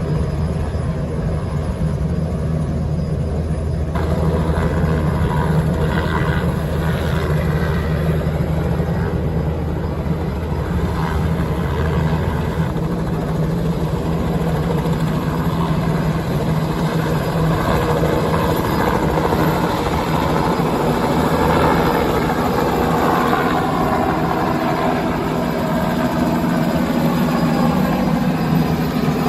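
Light two-bladed police helicopter flying low overhead, its rotor and engine sounding loud and steady. About four seconds in the sound fills out, and in the second half a whine slides in pitch as the helicopter passes close.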